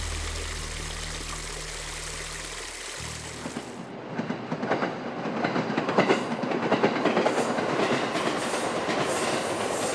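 Low held music notes for about three seconds, then a train passing, its wheels clattering over the rail joints in quick clicks over a steady rumble.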